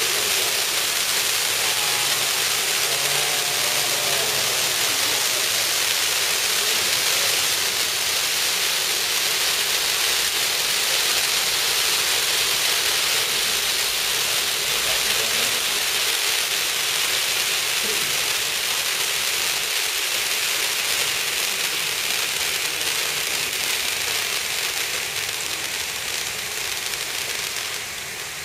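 Two rows of stage fountain fireworks (gerbs) burning together, a steady loud hiss of spraying sparks that eases slightly near the end.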